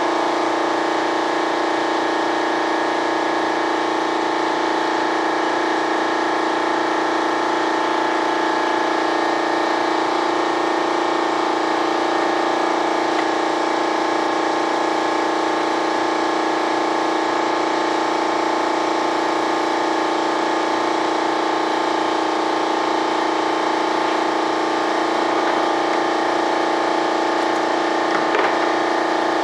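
Steady machine hum made of several held tones over a hiss, unchanging in level.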